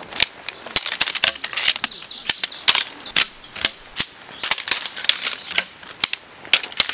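Metal windscreen poles being snapped together section by section, giving quick irregular clicks and clacks as the joints seat and the poles knock against each other.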